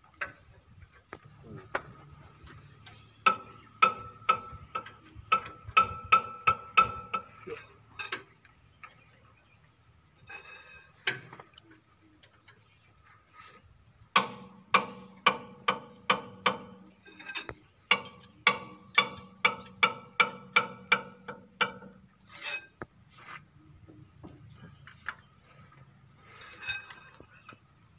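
Socket wrench on a long extension bar clicking as the head bolts of an excavator boom hydraulic cylinder are tightened. Sharp metallic clicks, each with a short ring, come about two to three a second in two long runs, with a pause between them.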